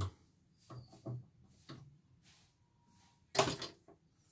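Hand tools and small parts being handled on a workbench: a few soft knocks, then a louder clatter lasting about a third of a second, about three and a half seconds in.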